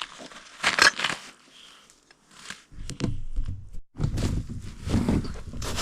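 Rustling and crunching as camp gear and dishes are picked up and handled. From about halfway in, a dense low rumbling on the microphone takes over, from handling or movement.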